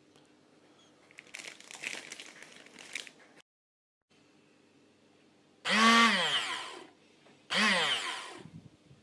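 Small kitchen blender pulsed twice, about a second and a half apart, its motor whirring up and winding down in falling pitch each time. Before that, a couple of seconds of rustling and clatter.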